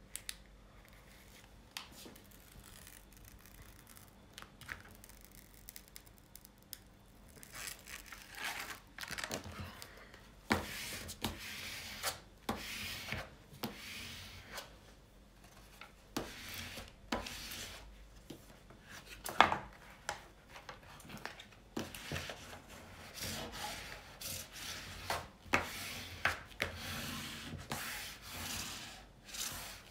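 Packaging being handled: irregular rustling, rubbing and scraping, with sharp knocks and clicks throughout. It follows about seven seconds of faint room tone, and the loudest knock comes about two thirds of the way through.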